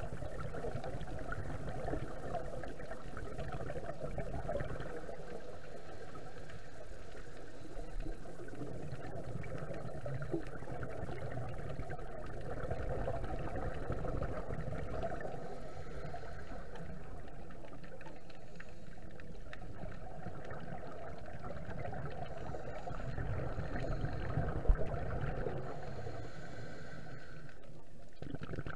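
Muffled underwater noise picked up by a camera in a waterproof housing, with scuba divers' regulator breathing and bubbles. A single sharp knock sounds near the end.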